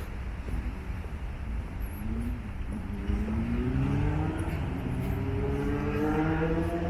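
A motor vehicle accelerating: a pitched engine or motor whine that climbs steadily in pitch from about two seconds in and grows a little louder, over a low steady rumble of traffic and wind.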